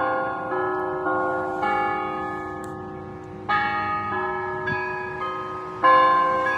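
A slow melody of struck bell tones, each note starting sharply and ringing away, new notes coming in every half second or so with a longer fading stretch in the middle.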